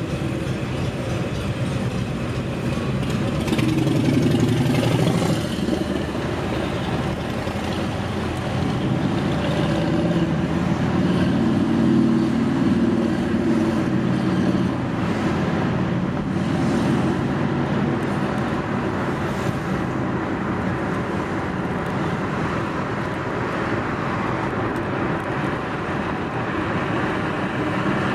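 Car driving in city traffic: steady engine and road noise, swelling louder about four seconds in and again around ten to fourteen seconds in.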